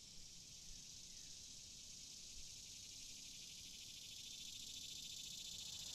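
Faint insect chorus, a steady high trilling hiss typical of crickets, growing slowly louder.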